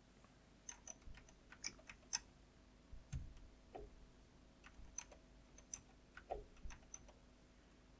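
Faint, irregular key clicks of someone typing on a computer keyboard.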